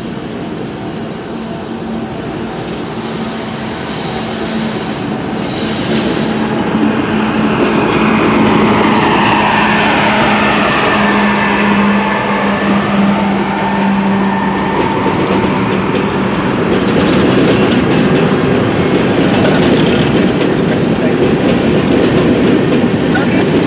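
A freight train passes close by. The GE ES44AC diesel locomotive's engine hum grows louder, then drops in pitch about halfway through as it goes past. Then a long string of empty sulphur hopper cars rolls by with steady clickety-clack wheel and rail noise.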